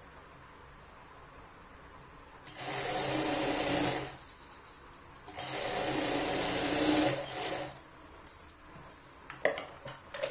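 Industrial sewing machine stitching in two runs, the first about a second and a half long and the second about two and a half, with a quiet pause between. A few sharp clicks come near the end.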